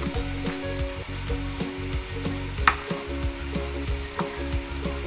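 Chopped vegetables and tomatoes sizzling in a frying pan over a gas flame, with scattered crackles and one sharp pop about two and a half seconds in.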